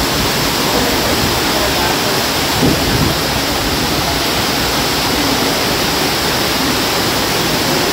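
Steady, loud rushing water of a waterfall.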